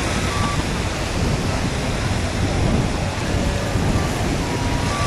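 Steady wind rushing and buffeting the microphone: a dense, even, rumbling noise that stays at the same level throughout.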